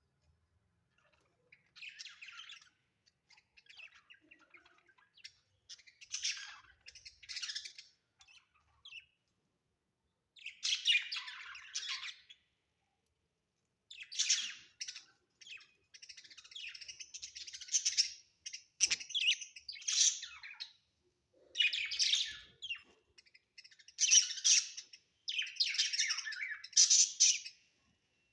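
Budgerigars chirping and chattering in repeated bursts of a second or two, with short silent gaps between them; the bursts grow louder and more frequent in the second half.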